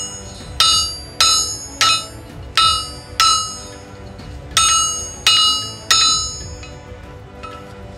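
Hand hammer striking a heated steel ax head to reshape its smashed eye: a run of ringing metal-on-metal blows about two-thirds of a second apart, a brief pause about four seconds in, then three more blows.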